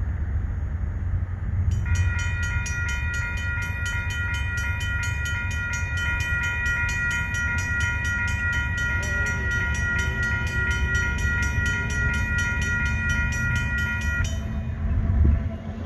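Union Pacific diesel locomotive's multi-chime air horn sounding one long, steady blast of about twelve seconds, starting about two seconds in and cutting off near the end, over the low rumble of the train.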